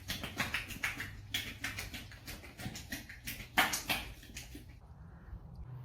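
A horse making its strange noise: a quick run of short, breathy sounds, several a second, that die away near the end.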